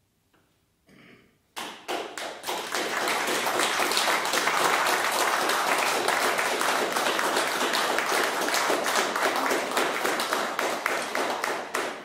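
Audience applauding: the clapping starts after about a second and a half of quiet, holds steady, and fades away near the end.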